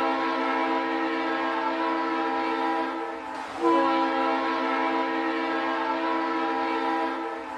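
Train horn sounding two long, steady blasts, with a short break about three seconds in.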